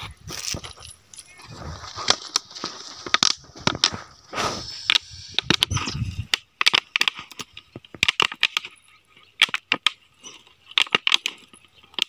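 Clear plastic bottle handled and its screw cap worked open: a string of sharp plastic clicks and crackles, thickening about halfway through, with some rustling before that.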